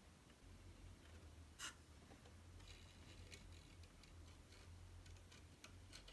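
Faint hand-work sounds: a single sharp click about a second and a half in, then a run of quick, light scratching and clicking, like paper or thin bamboo being handled or cut.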